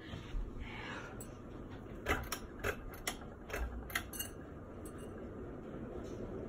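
A Harbor Breeze ceiling fan's pull chain being tugged: a quick run of sharp metallic clicks and rattles from the chain and its speed switch. The clicks fall between about two and four seconds in.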